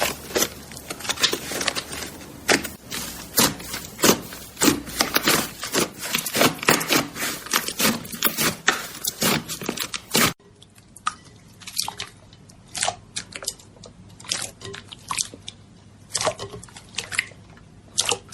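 Slime being squeezed and kneaded: rapid wet squishing with many sharp pops and clicks. About ten seconds in the sound cuts to a sparser, quieter stretch of pops.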